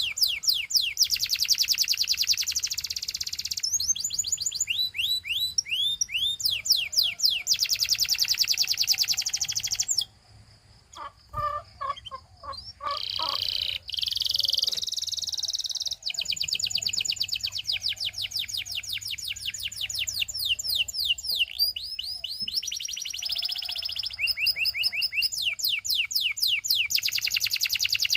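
Canary singing: long rolls of fast, evenly repeated high chirps and down-sweeping notes, one trill phrase after another. There is a short break about ten seconds in before the song picks up again.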